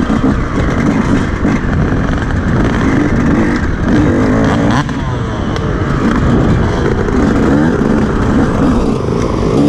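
Off-road dirt bike engine revving up and down as it is ridden along a wooded race trail, its pitch rising and falling again and again.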